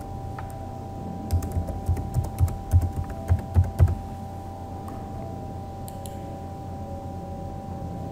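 Computer keyboard keys being typed: about ten quick keystrokes entering a password, then one more click about six seconds in. A faint steady hum runs underneath.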